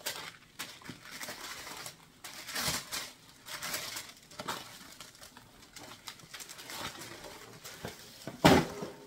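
Tissue paper rustling and crinkling in irregular handfuls as it is unfolded and pulled back, with a louder rustle near the end as a cotton dust bag is lifted out.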